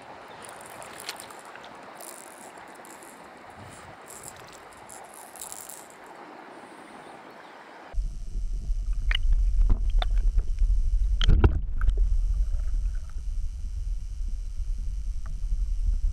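Faint hiss of moving river water with a few light rattles and crackles while a caught pike is handled. About halfway through, the sound switches to a camera underwater: a loud, steady low rumble with scattered clicks and knocks.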